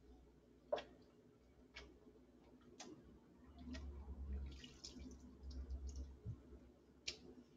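Faint water stirring as wool is pressed down into a sink of hot scouring water, with a few sharp clicks spread through it. The stirring is soft and swells for a few seconds in the middle.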